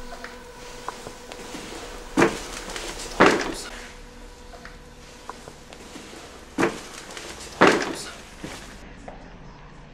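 Four loud thuds, each with a short rough tail, in two pairs about a second apart, with a few lighter clicks between them.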